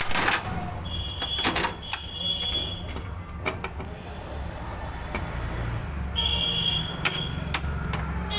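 Screwdriver working a screw loose on a copier's sheet-metal frame: a scattering of sharp metallic clicks and knocks, the loudest right at the start, over a steady low hum.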